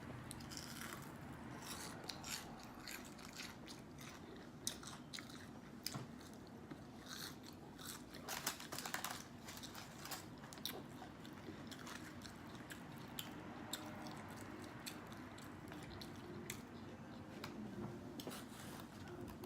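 A person chewing fried food close to the microphone, with irregular crisp crunches.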